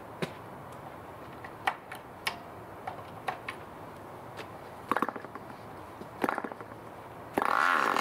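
D-C Tornado Twin 5cc boxer glow engine being hand-started: the propeller is flicked over compression with a click several times, the engine fires a few quick pops about five and six seconds in, then catches and runs loudly near the end.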